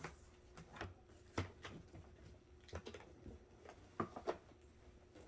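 Faint handling sounds of a boxed bag being lifted out of its packaging: a few light, uneven knocks and rustles.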